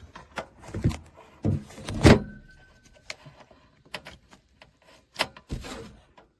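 Handling knocks and clicks from plugging an IEC power cord and the iFi DC Blocker+ inline: a string of sharp clicks and thumps, the loudest about two seconds in.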